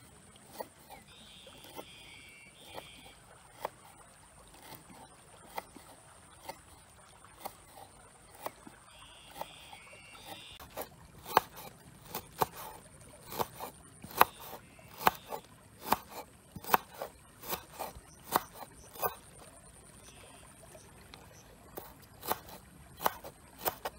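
Large knife chopping lemongrass on a wooden cutting board: each stroke is a sharp knock of the blade on the board. The knocks are sparse at first, then come faster and louder, about one or two a second, from about halfway through before slowing again near the end.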